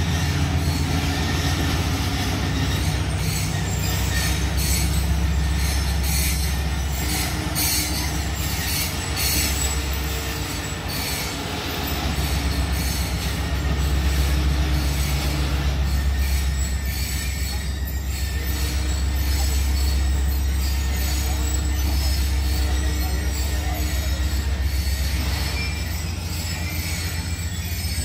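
Pakistan Railways passenger coaches rolling slowly past, the wheels clicking and grinding on the rails over a steady low hum.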